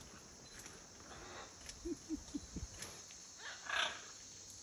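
Scarlet macaw giving a short squawk about three and a half seconds in, over a steady drone of insects.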